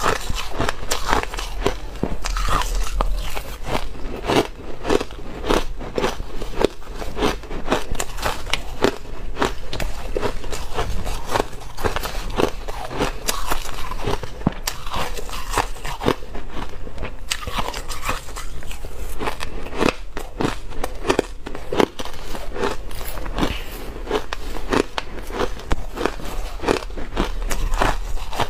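Crushed ice crunching between the teeth as it is chewed, close to the microphone: a dense, continuous run of crisp, crackling crunches.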